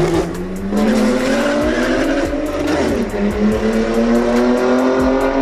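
BMW sedan accelerating hard down a drag strip: the engine note climbs, drops as it shifts up about three seconds in, then climbs again as it pulls away.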